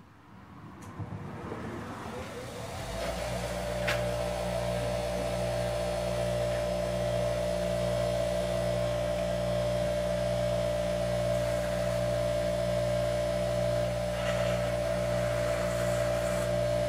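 Lawn tractor's Kohler Command engine coming up to speed over the first few seconds, then running steadily with a constant hum and whine. A single click sounds about four seconds in.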